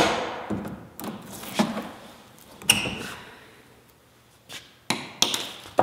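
Screwdriver prying at the stapled metal end cap of a cardboard shipping tube: a series of sharp, irregular metallic clicks and knocks, the loudest at the start, with a short lull about four seconds in.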